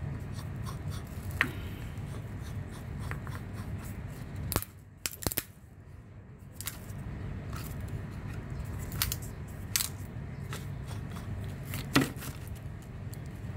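Walnuts being cracked in a wooden screw-type nutcracker and the broken shells picked apart by hand: scattered sharp clicks and cracks, the loudest about twelve seconds in. A steady low hum from air-conditioner units runs underneath.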